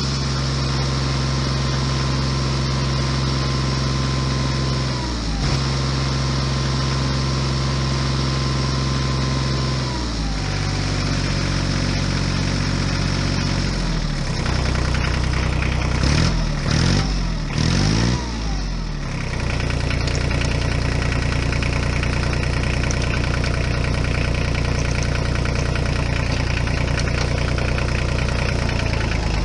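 Tractor engine sound, running steadily with pitch drops about five and ten seconds in, then revving up and down several times before settling back to a steady run.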